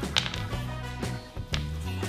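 Background music: a steady bass line with percussive hits.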